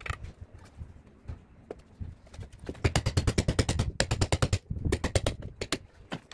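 Two quick runs of sharp clicking taps, about ten a second, in the second half, from hand-tool bricklaying work on mortar and hollow clay bricks.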